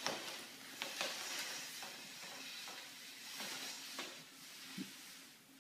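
Faint rustling with a few light taps as a ferret drags and tussles with a cloth on a tile floor.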